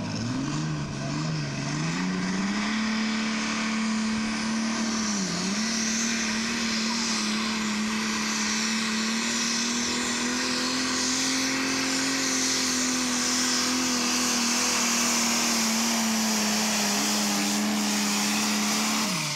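New Holland pulling tractor's diesel engine under full throttle on a pull, belching black smoke. Its pitch climbs over the first two seconds, dips briefly about five seconds in, then holds high and steady before ending abruptly.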